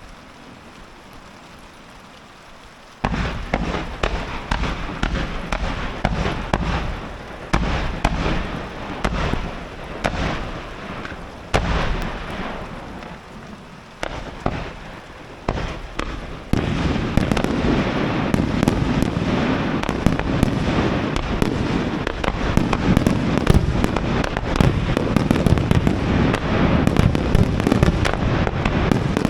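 Fireworks display: after a few quieter seconds, a series of shell bursts, each bang fading away, then from about halfway a dense barrage of rapid overlapping bangs that stays loud.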